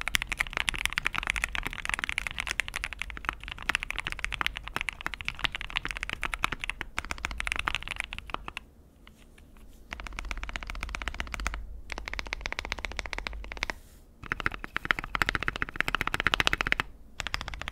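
Fast typing on a mechanical keyboard fitted with aftermarket keycaps: a dense stream of keystroke clacks. There are short pauses about nine, fourteen and seventeen seconds in.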